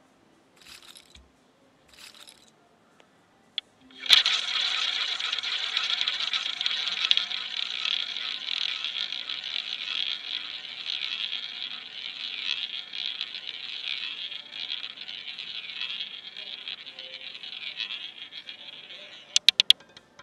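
Roulette ball launched about four seconds in and rolling around the wheel's track in a steady whir for some fifteen seconds, ending in a quick run of clicks as it drops and bounces among the pockets.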